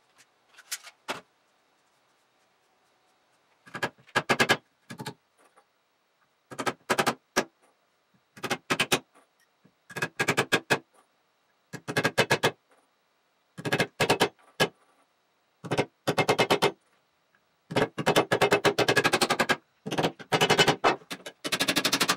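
Hammer driving steel nails into a wooden log, in short bursts of rapid blows that come every second or two with pauses between them.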